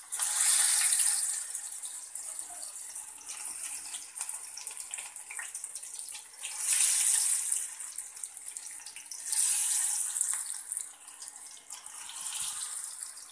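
Masala-coated rohu fish pieces sizzling in hot oil in a frying pan. The sizzle surges loudly four times as each new piece is laid in, and keeps up a steady hiss in between.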